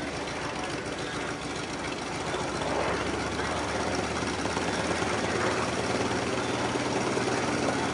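An engine running steadily with a low hum, getting louder about two and a half seconds in.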